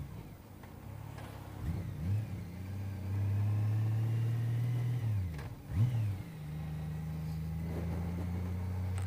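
Honda CBR600RR's inline-four engine being ridden: the revs climb about two seconds in and hold, drop about five seconds in, blip up briefly once, then settle to a steady lower running note.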